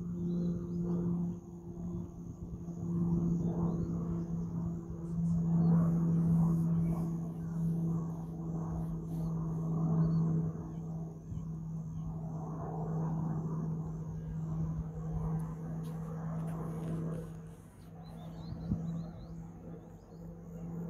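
Military aircraft droning in flight at a distance: a steady low hum that swells and eases, over a rushing rumble.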